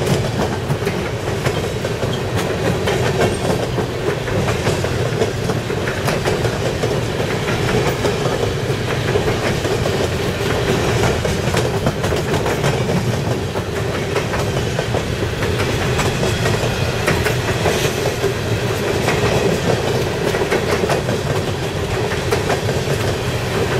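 Freight train's open-top hopper cars rolling past close by: a steady rumble of steel wheels on rail with a continual clickety-clack of wheels clacking over the track.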